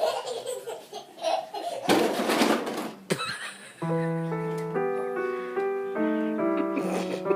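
A baby laughing, with a short loud noisy burst in the middle, then a simple melody of held keyboard-like notes starting about four seconds in.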